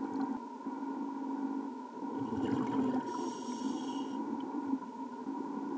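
Scuba diver breathing through a regulator underwater: a surge of exhaled bubbles about two seconds in, then the hiss of an inhale for about a second, over a steady hum.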